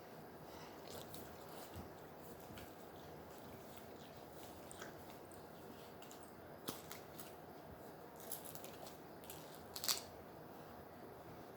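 Quiet rustling and crinkling of an ice pack being handled and fitted, with a few small sharp clicks in the second half.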